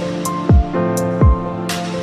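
Background music: sustained synth chords over a deep electronic kick drum, with bright cymbal-like hits.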